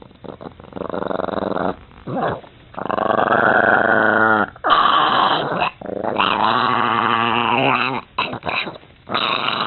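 A dog vocalizing in a series of long, wavering growls, each a second or two long, with short breaks between them.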